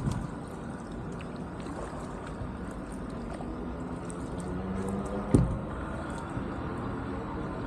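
Kayak paddling: the paddle blades dipping and pulling through the water, water lapping and trickling along the hull, with wind on the microphone. A single sharp knock comes about five seconds in.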